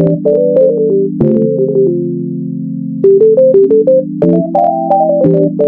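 Background music: an electronic keyboard melody of short stepping notes over held synth chords, with a light clicking beat. The melody pauses on one long held note for a moment about a second in, then carries on.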